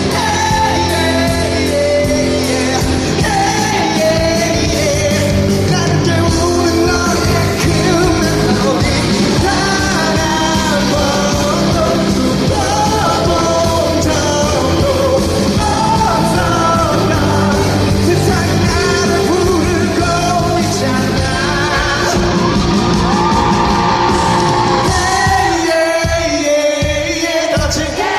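A live pop-rock band playing loudly in a concert hall, with a male singer's belted, shouted vocal line over it. About three seconds before the end the bass drops out, leaving a few separate drum hits.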